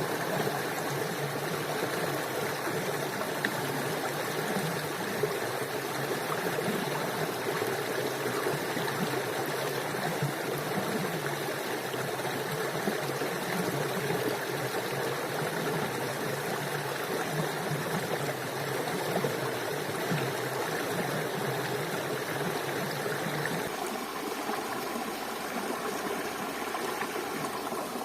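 Steady rushing of running water, like a forest stream. Near the end its deeper part drops away.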